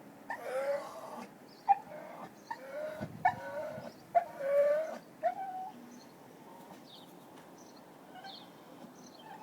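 A dog whining and crying: a string of about six short, pitched cries over the first six seconds, then it falls quiet.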